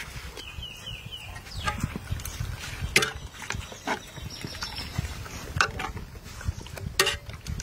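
Metal ladle stirring chunks of braised pork in thick sauce in a metal pot: irregular knocks and scrapes of the ladle against the pot, with wet squelching of the meat.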